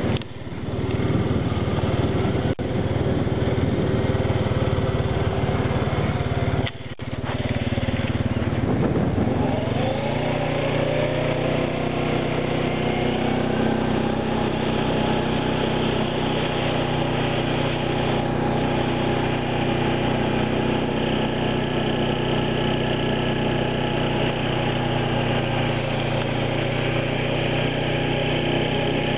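Engine of a vehicle towing a skimboarder on a rope through beach shallows. A rushing noise covers the first several seconds; after a brief dip about seven seconds in, the engine's pitch rises over a few seconds and then holds steady.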